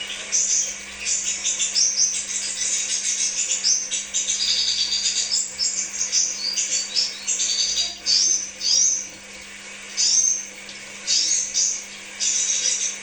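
Crimson sunbird (kolibri sepah raja) singing: rapid bursts of high-pitched chirps and short trills, with brief pauses between phrases toward the end.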